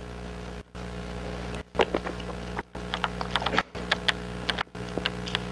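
Paper rustling and small clicks as the pages of a book are handled and turned, over a steady electrical hum. The sound drops out briefly about once a second.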